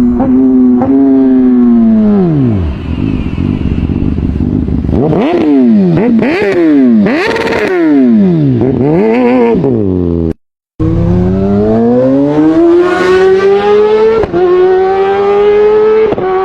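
Kawasaki motorcycle engine revving. The revs first fall away, then the throttle is blipped in quick rises and falls about once a second. After an abrupt cut, a motorcycle accelerates, its pitch climbing steadily with brief dips.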